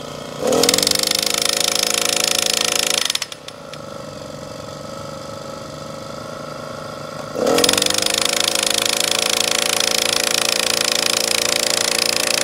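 Gas-powered portable post driver pounding a chain-link fence post into the ground. Its small engine revs up into rapid hammering for about two and a half seconds, drops back to idle about three seconds in, then revs up and hammers again from about seven and a half seconds on.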